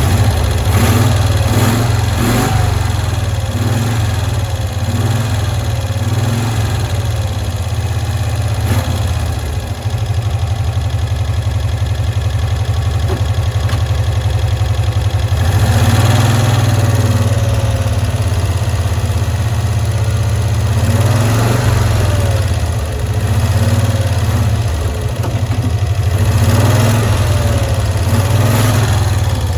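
1965 Cushman Truckster engine running steadily and swelling several times as the throttle is opened, after a stuck carburetor lean-mixture screw was freed.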